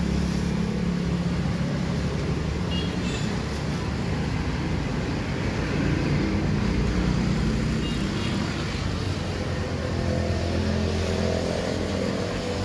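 Steady low hum of a motor vehicle engine running, with the general noise of street traffic.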